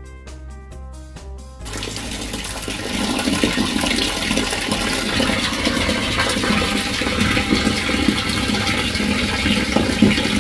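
A second and a half of music, then steady rushing, splashing water in a 1,000-litre plastic tank packed with catfish juveniles, growing louder over the next second or so and then holding.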